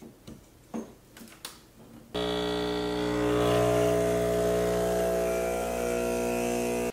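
A few light clicks and taps, then about two seconds in a small electric motor switches on and runs with a steady hum until it cuts off suddenly.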